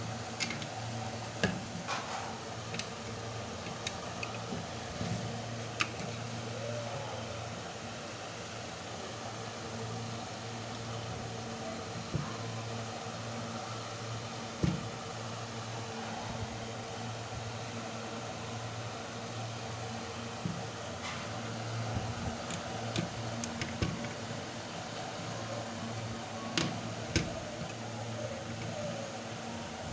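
A steady low hum with scattered small clicks and taps, some louder than others.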